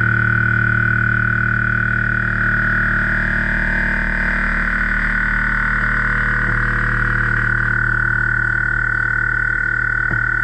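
CNC milling machine cutting steel, a steady high-pitched tone over a low hum with a rapid pulsing, changing abruptly near the end.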